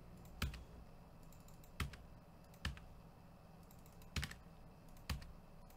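Keys pressed one at a time on a computer keyboard: sharp single clicks roughly a second apart, two of them close together about four seconds in, over a faint steady low hum.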